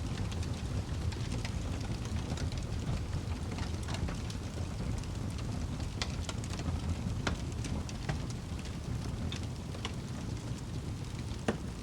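Wood fire burning in a fireplace: a steady low rumble of the flames with irregular sharp crackles and pops, one louder pop near the end.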